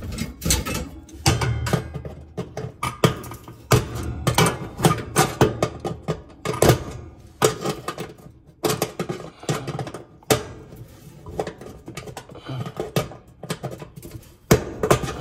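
Tongue-and-groove pliers working at the oven's broiler igniter bracket and perforated sheet-metal heat guard: a rapid, irregular run of sharp metallic clicks and clanks.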